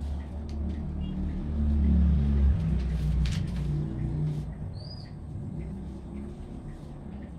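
Low engine rumble of a passing motor vehicle, swelling about two seconds in and then fading. Over it come scattered light clicks of a metal spoon against a plastic tub as mashed sweet potato is spread and smoothed, and a single short bird chirp a little past the middle.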